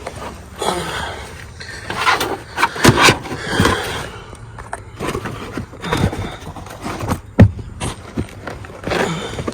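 Irregular knocks, clunks and scrapes of hand work, parts and tools being handled and moved about.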